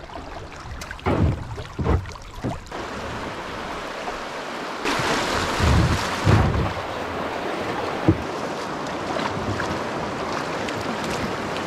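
River water rushing over a shallow rocky rapid around a kayak, with wind on the microphone. The rushing grows louder for a second or two about halfway through, and a few short low thumps come through.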